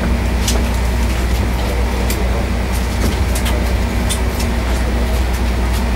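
Warship's engines and machinery running heard on board, a steady low hum with a constant noise beneath. A few faint clicks come through.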